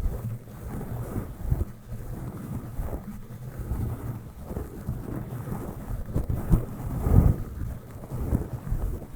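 Soft brush stroked directly over a microphone: irregular muffled swishes and low rumbles, with the strongest stroke about seven seconds in.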